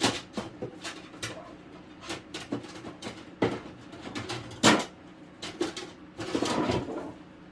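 Plastic smoke alarm mounting bases being handled and put away: a run of irregular clicks and knocks as they are picked up and set down, the sharpest a little under five seconds in, then a short rustle.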